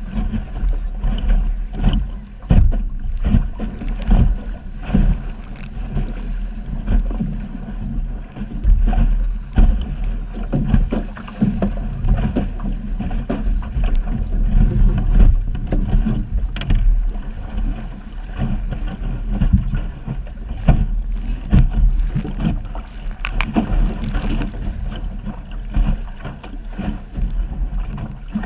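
Wind buffeting the microphone of a camera mounted in a small sailing dinghy under sail in choppy water, with irregular slaps and splashes of water against the hull. The noise is a deep uneven rumble that keeps swelling and dropping.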